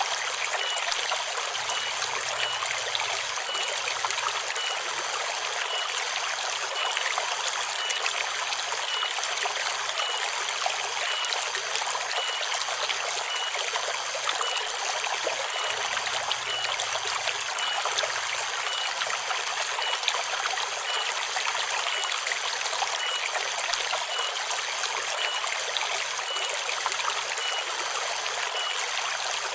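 River water flowing and trickling steadily, with cicadas singing in a high continuous drone over it. A short high chirp repeats about once a second.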